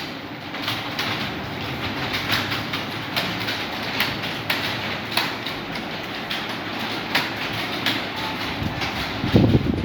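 Many Acer computer keyboards being typed on at once, a dense, steady clatter of overlapping key clicks. A short, louder low-pitched sound comes near the end.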